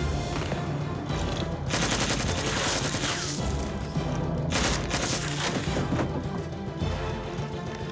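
Two bursts of rapid automatic gunfire, a long one starting about two seconds in and a short one about five seconds in, over background film music.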